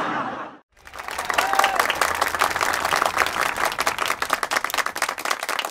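A brief loud sound cuts off abruptly just after the start. After a short gap, a large crowd starts applauding, many hands clapping without a break.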